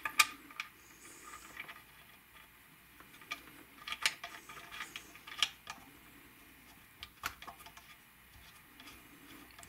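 Scattered small metal clicks and clinks as a steel tailpiece stud is handled and turned by hand into a new anchor bushing in a Les Paul body. The sharpest clicks come right at the start, with others about four, five and seven seconds in.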